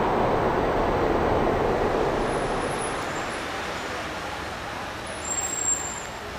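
Background road traffic: the noise of a passing vehicle that slowly fades away, with a short faint sound near the end.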